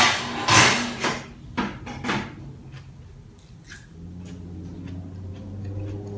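Crunchy bites and chewing of a lettuce wrap in the first two seconds or so. About four seconds in, a steady low hum starts up: a kitchen appliance switched on to cook.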